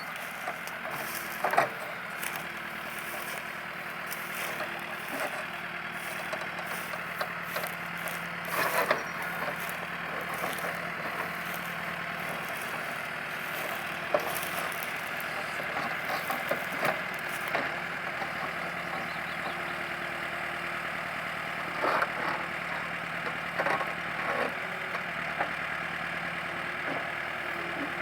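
Caterpillar 428C backhoe loader's diesel engine running steadily while it digs, with scattered knocks and clatters from the work.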